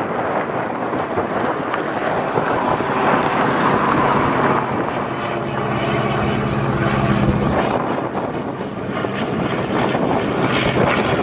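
Engine and propeller of a giant-scale radio-controlled Bücker 133 Jungmeister biplane model in flight, a steady drone whose pitched note grows clearer and louder around the middle. Wind buffets the microphone throughout.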